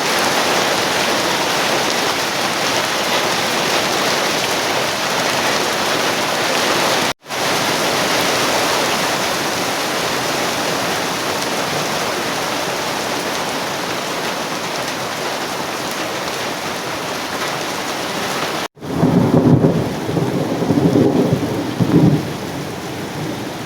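Heavy downpour: a loud, steady hiss of rain, broken twice by sudden short cuts. In the last few seconds thunder rumbles several times over the rain.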